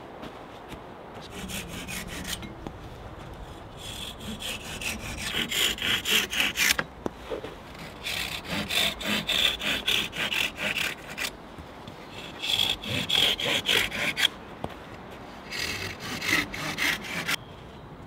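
Hand saw cutting through hazel rods to trim the ends of a woven hazel panel. Five runs of quick back-and-forth strokes, about four or five a second, with short pauses between cuts.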